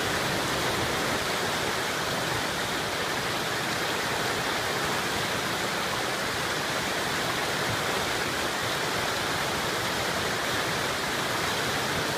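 River water rushing over rapids, with a small waterfall spilling into the river: a steady, even rush of white water.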